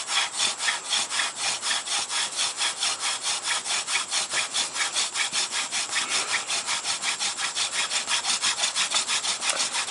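Hand drill fire-by-friction: a yucca spindle spun back and forth between the palms, its tip grinding in the notch of a Ganoderma fungus base. It makes a steady, fast rasping rhythm of about six strokes a second, building heat toward an ember.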